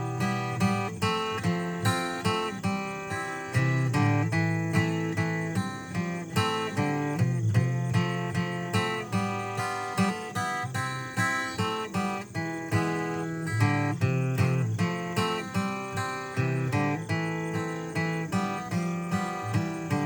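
Acoustic guitar playing an instrumental introduction to a country song, chords strummed and picked in a steady rhythm of about two strokes a second.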